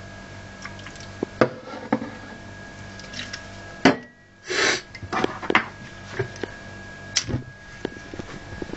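Scattered sharp clicks and knocks as the fluid-soaked hard disk is set alight, with a short hiss about halfway, over a steady low hum.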